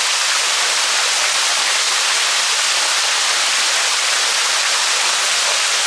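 Waterfall rushing in a steady, unbroken hiss of falling water.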